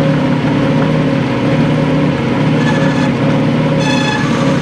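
Craftsman/Atlas metal lathe running, its motor and drive giving a steady hum while the tool takes a cut on a 1018 steel bar. A short, thin high-pitched ring sounds about two and a half seconds in, and a brief, stronger ringing tone just before the end.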